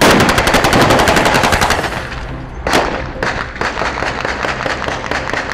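Automatic gunfire: a long, rapid burst of shots, then a single louder bang a little under three seconds in, followed by further shots in quick succession.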